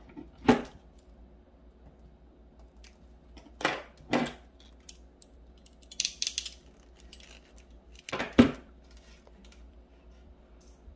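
Sharp knocks of hand tools and tackle being handled on a wooden table, with a quick run of high metallic clicks about six seconds in as crimping pliers squeeze a crimp sleeve onto heavy monofilament leader.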